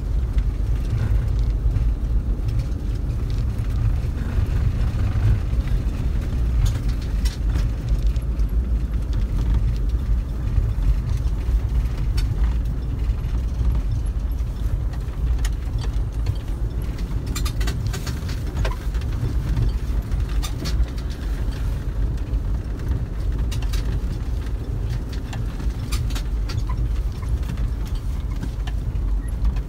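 A vehicle driving over a snow-covered track, heard from inside the cab: a steady low rumble with scattered clicks and knocks.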